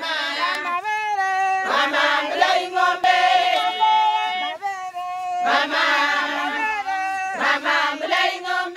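A group of voices singing together, with several notes held at once. New sung phrases swell in about two seconds in and again past the middle.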